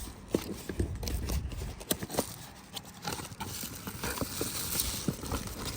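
A package being opened and handled by hand: irregular clicks, crinkles and rustling of the packaging.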